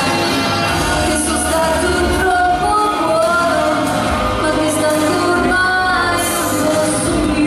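A woman singing a song into a handheld microphone, amplified, over backing music.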